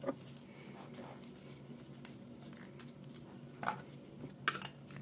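Hard plastic hair-clipper housing being handled and fitted together, giving a few faint clicks and taps, one at the start and two or three near the end.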